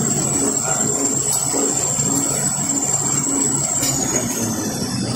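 Kitchen towel roll converting line running: machinery noise with a low beat repeating about every half second, under a high whine that holds steady and then falls in pitch near the end.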